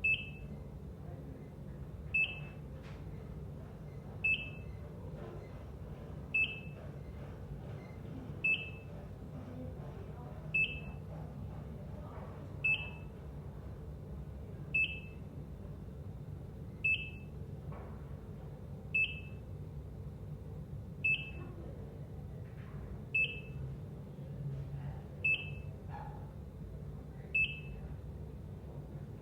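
ECG heart monitor beeping: short high beeps of one pitch, evenly spaced, one about every two seconds, over a steady low hum.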